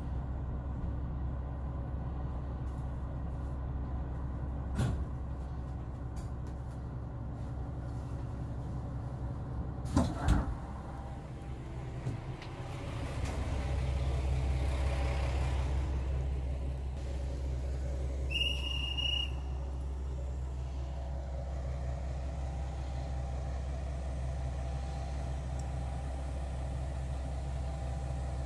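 A vehicle's engine running steadily with a low hum. Two sharp knocks come about ten seconds in, the engine sound swells for a few seconds afterwards, and a short high beep sounds about two-thirds of the way through.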